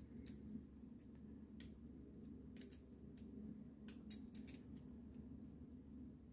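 Faint, irregular scrapes and clicks of a utility-knife blade skinning the insulation off a thin red wire, a cluster of them around the middle, over a low steady room hum.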